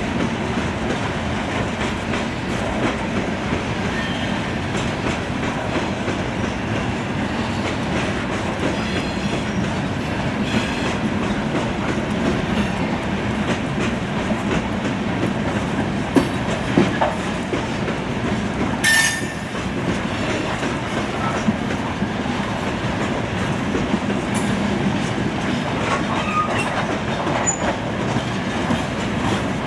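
Freight train of aluminum coal hoppers rolling steadily past, wheels clacking over rail joints, with a few sharp clicks and a brief high wheel squeal about two-thirds of the way through.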